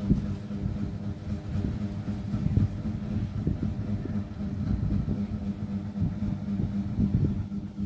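Sleeping cat snoring: a low, continuous rumble.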